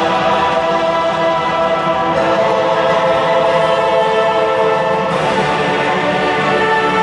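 Orchestral music with a choir, in long held chords that change about two seconds in and again about five seconds in.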